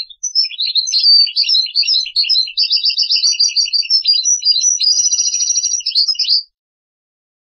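European goldfinch singing: a rapid, unbroken run of twittering notes and trills lasting about six and a half seconds, with a held buzzy trill near the end, then stopping abruptly.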